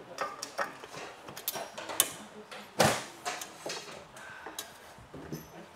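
Scattered clicks and knocks of metal parts as a kart exhaust silencer is handled and fitted onto the exhaust, with the loudest knock about three seconds in.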